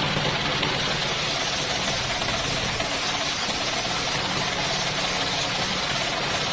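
Homemade table circular saw ripping a coconut-palm (glugu) plank, steady cutting noise from the blade in the wood over the continuous chugging of the engine that drives it.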